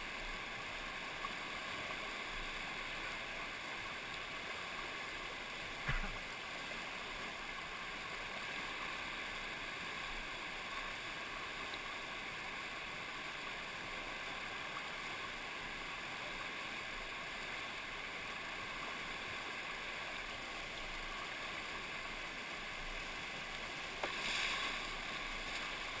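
Steady rushing of a shallow, rocky whitewater rapid close by. A single sharp knock sounds about six seconds in, and the water noise swells briefly louder near the end.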